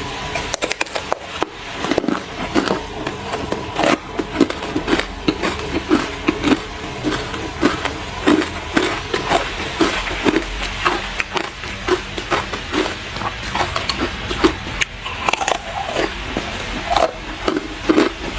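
Hard ice being bitten and chewed, a quick irregular run of crunches, about two a second.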